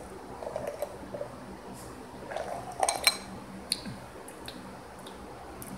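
Two people sipping soda from drinking glasses, with a few small clinks and knocks as the glasses are handled and lowered; the sharpest knock comes about three seconds in.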